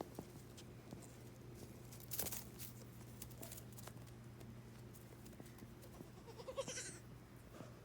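A goat sneezes, a short sharp blast of breath about two seconds in; a few seconds later a goat gives one short, high bleat.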